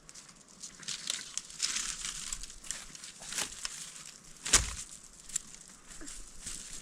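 Rustling and crinkling handling noises with scattered clicks, and one sharp knock about four and a half seconds in.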